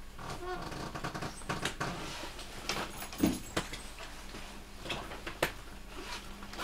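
Inside a train car standing at a station platform: a steady low hum with scattered light clicks and knocks.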